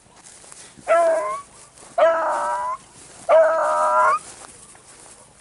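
A beagle baying: three drawn-out, howling bays, the first the shortest. It is the voice a scent hound gives when it is on a rabbit's trail.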